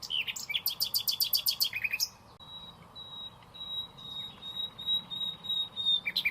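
Songbird singing: a quick run of high chirps, then a long thin high trill of short repeated notes, then another quick run of chirps near the end.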